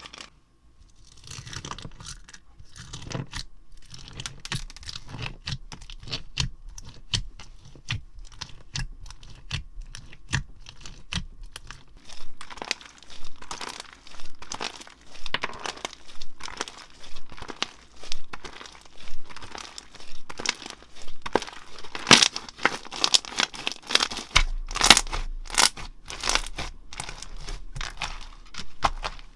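Slime being squeezed, pressed and stretched by hand, crackling with many small sharp pops. It starts soft and grows louder, and in the second half there are strong presses about once a second.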